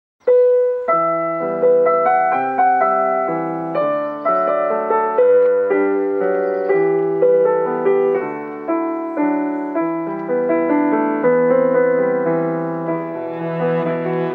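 Digital piano playing a slow, gentle classical melody with chords, each note struck and fading, about one or two notes a second.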